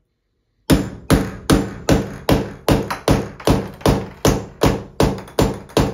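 Framing hammer tapping a sharpened cartridge-removal tool down into a seized faucet cartridge, driving it in to grip the cartridge so it can be spun out. A steady series of about fourteen evenly spaced strikes, roughly two and a half a second, starting just under a second in.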